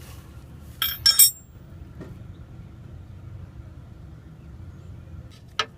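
A few sharp metallic clinks about a second in, then a steady low rush of dirty engine oil draining from the open drain-plug hole into the drain pan. More clinks come near the end.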